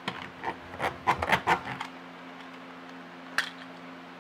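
Plastic wheeled garlic chopper pushed back and forth across a tabletop: a quick run of rubbing and rattling strokes over the first two seconds, then a single click about three and a half seconds in. The garlic is not getting chopped, which is put down to the wheels not rolling on the slippery table.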